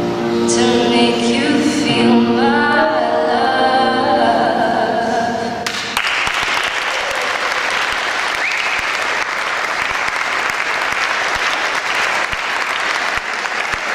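Singing with piano accompaniment, held steady notes, which breaks off abruptly about six seconds in. Then a room full of people claps steadily.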